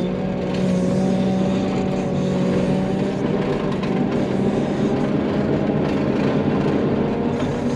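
Wheel loader's diesel engine running steadily, its pitch rising slightly just at the start and then holding even.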